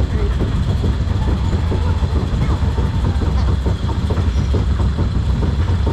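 Compact portable steel roller coaster train being pulled up the lift hill: a steady low rumble of the lift chain with rapid, continuous clicking and clanking of the chain and anti-rollback ratchet.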